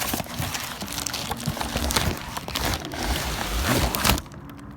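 Rustling and crinkling of packaging as a boxed train horn kit is unpacked and handled, with scattered clicks and knocks. It stops abruptly about four seconds in.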